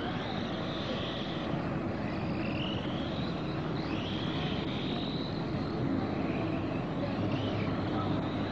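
Radio-controlled race cars' motors whining, their high pitch rising and falling several times as they accelerate, brake and pass, over a steady rumbling background noise.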